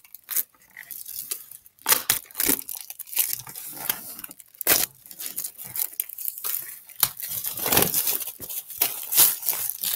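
Clear plastic shrink-wrap being torn and pulled off a boxed set of paperback books, crinkling in irregular crackles that grow busier from about seven seconds in.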